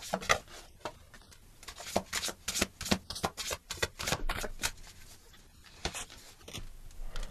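A deck of tarot cards being shuffled by hand: quick, irregular flicks and snaps of the cards, busiest in the first half and thinning out towards the end.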